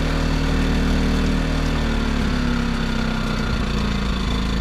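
Predator 2000 inverter generator's small single-cylinder four-stroke engine running steadily; about halfway through its speed drops and settles lower as the economy throttle (ESC) takes over.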